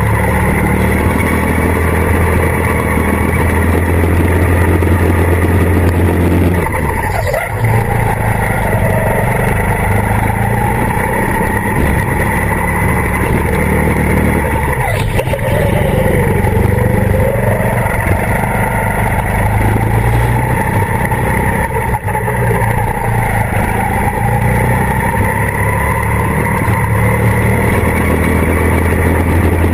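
Go-kart engine running hard, heard from the driver's seat; its note drops and picks back up twice, about 7 seconds in and again around 15 seconds in.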